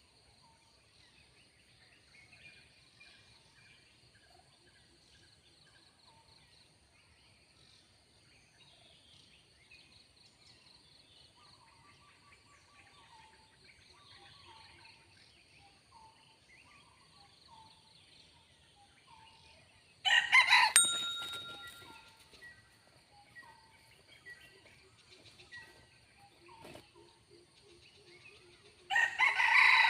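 Red junglefowl rooster crowing twice, loud, about twenty seconds in and again at the very end, over faint forest birdsong and a steady high insect drone.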